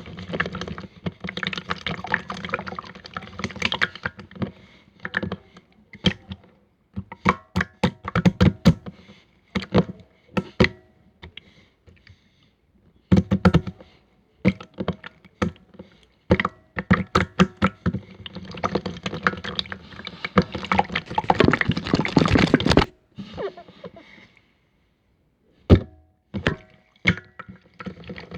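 Opaque slime being squeezed and stretched by hand: wet squishing stretches alternate with runs of sharp popping clicks from trapped air.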